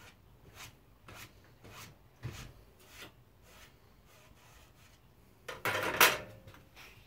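Hand saw scraping through plastic stock in a few light, slow strokes, then a louder burst of scraping near the end.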